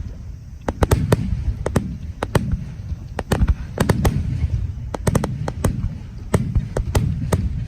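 Aerial fireworks bursting in a rapid barrage: many sharp cracks and bangs in quick, irregular succession over a continuous low rumble and echo.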